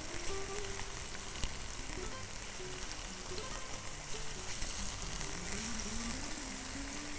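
Chicken escalopes with sliced onions and red peppers sizzling in oil in a non-stick wok as they are turned with tongs, a steady hiss with a single sharp click about one and a half seconds in.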